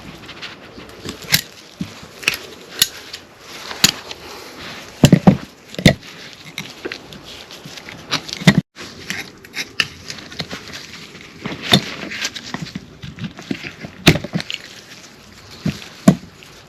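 Irregular metallic clicks and knocks of C-clip (snap-ring) pliers and the pump housing as a C-clip is worked out of a Honda power steering pump, with a cluster of louder knocks about five to six seconds in.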